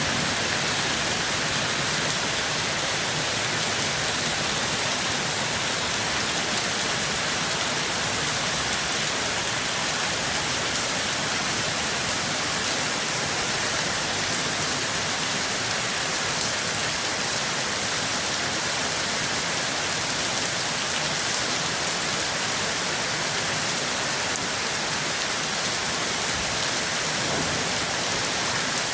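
Steady, even rain falling, a dense hiss of drops that does not change.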